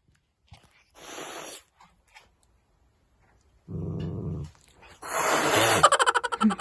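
A pet animal growling. A short breathy burst comes about a second in, then a low growl, then a louder, harsher growl near the end.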